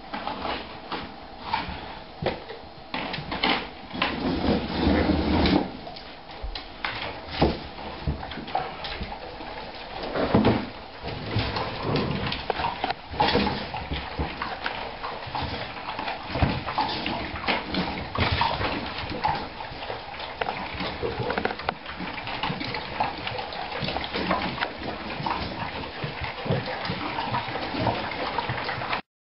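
A pack of dogs eating dry kibble from stainless-steel bowls on a wooden floor: crunching, with a steady run of sharp clicks and clanks as the metal bowls are knocked and pushed about.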